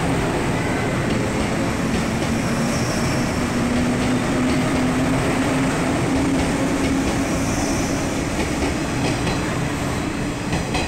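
JR 117 series electric train pulling out and running past at close range: wheels on the rails with a steady low hum underneath.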